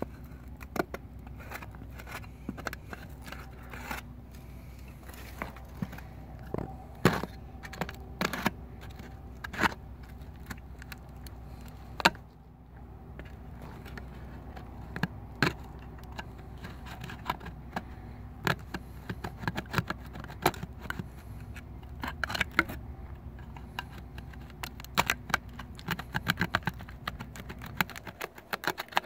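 A jagged piece of rusty sheet metal scraped again and again against a leather motocross boot to scuff it: irregular rasping strokes with sharp metallic clicks, pausing briefly about twelve seconds in.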